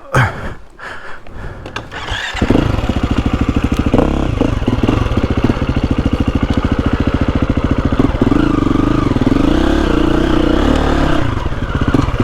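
Trail motorcycle engine starting about two seconds in after a few knocks, then running steadily, with its note changing briefly toward the end.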